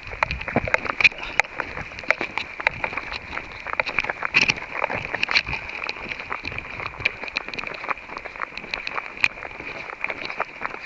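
Footsteps of a hiker on a mountain trail: irregular clicks and scrapes, several a second, over a steady high hum.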